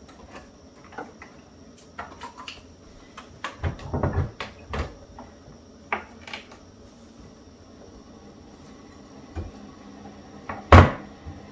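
Scattered clicks, clacks and knocks of kitchen things being handled at a pod coffee maker, such as a cabinet and a lid. A cluster of heavier thuds comes about four seconds in, and one loud knock near the end as something is set down on the counter.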